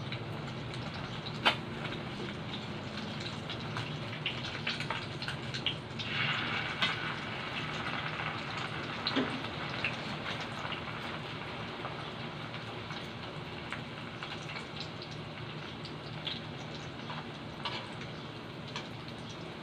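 Spring rolls deep-frying in hot oil in a pan: a steady sizzle with crackles, and sharp clicks of metal tongs against the pan. The sizzle swells loudly about six seconds in as more raw rolls go into the oil.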